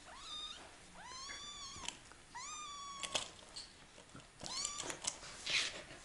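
Very young kittens mewing: four high, thin mews, the second and third long and drawn out, the last short. Short clicks fall between them, and a brief breathy rush comes near the end.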